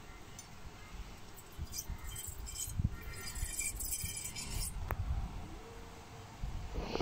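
Hamster burrowing through wood-shaving bedding: scattered crisp rustling and crackling of the shavings, busiest from about one and a half to five seconds in, over dull low bumps.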